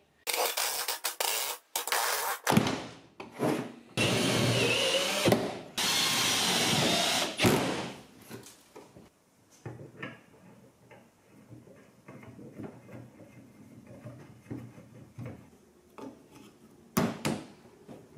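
Power drill run in several loud bursts, two of them held for about a second and a half, while the stick-steer box is fastened together. After about eight seconds come quieter clicks and knocks of metal parts.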